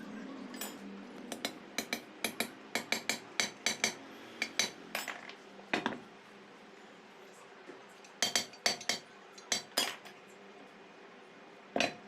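Metal gearbox parts clinking and knocking against each other as they are handled: a quick run of sharp clinks for several seconds, then another cluster after a short pause.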